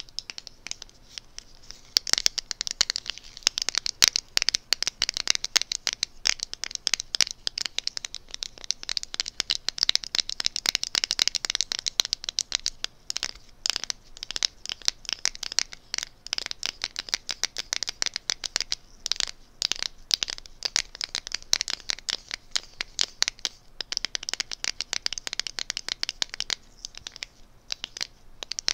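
Close, rapid fingernail scratching and tapping on a small cosmetic item, a dense run of fine crackly clicks. It starts about two seconds in and goes on with only brief pauses.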